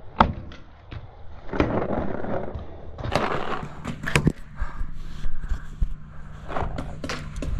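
Irregular sharp pops and clacks, typical of paintball markers firing during a game, with rough scraping and rustling between them.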